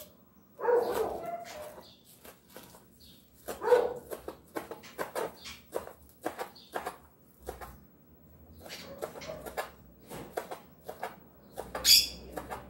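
Kitchen knife chopping green onions on a plastic cutting board: a long run of quick, uneven taps. Two louder bursts come about a second in and near four seconds, and a sharp high-pitched burst near the end.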